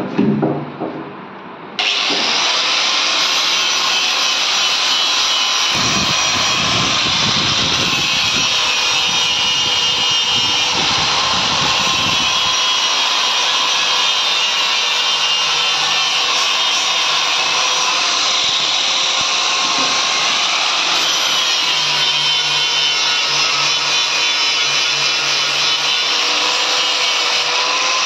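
Electric angle grinder with a sanding disc, starting suddenly about two seconds in and then running steadily as the disc sands the edge of a plywood panel. It grinds harder against the wood for several seconds in the middle.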